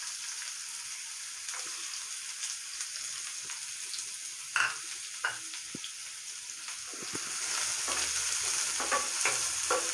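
Chopped red onion and cumin seeds sizzling in hot oil in a non-stick frying pan, with a few light clicks. From about seven seconds in, a wooden spatula stirs and scrapes the onion around the pan, and the sound grows louder.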